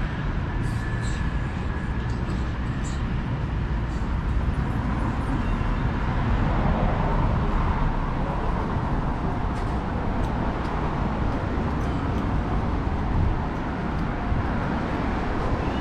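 Steady city-street traffic noise from cars passing on the road beside the sidewalk.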